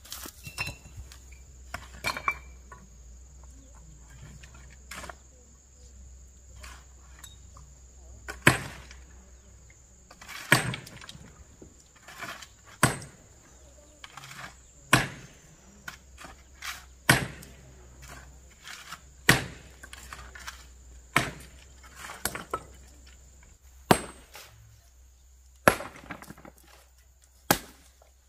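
Hammer blows on rock: sharp strikes, a few light ones at first, then a heavy one about every two seconds from about eight seconds in, with lighter taps between. Under them runs a steady high insect drone.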